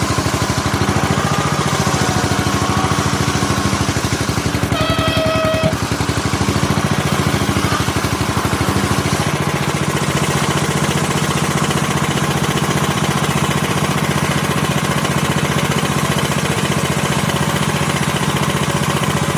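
Two-stroke chainsaw engine running steadily, its low part growing stronger about nine seconds in. A brief high tone sounds for about a second around five seconds in.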